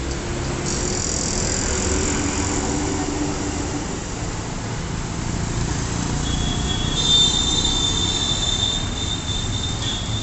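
Road traffic running with a steady low rumble, overlaid by high-pitched squeals: one from about a second in and a longer one from about six seconds in until near the end.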